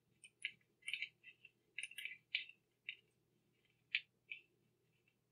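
Metal knitting needle tips clicking and scraping against each other as stitches are knit, in faint, short, irregular ticks.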